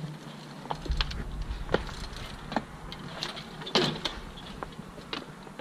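Scattered sharp clicks and knocks from a BMX bike being handled, about five in all, with a brief low rumble about a second in.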